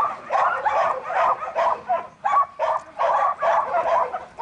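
Dog barking over and over, about three barks a second.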